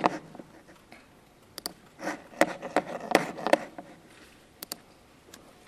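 Scattered clicks and taps of a laptop's keys and trackpad, in clusters about one and a half to three and a half seconds in, then a few single clicks near the end.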